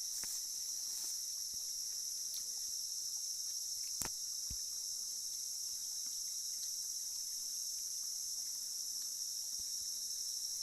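Steady high-pitched drone of a forest insect chorus, with a single sharp click about four seconds in.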